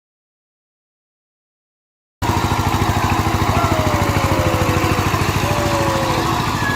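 About two seconds of silence, then an engine cuts in abruptly, running steadily with a fast, even pulse. A few faint sliding squeaks sound over it.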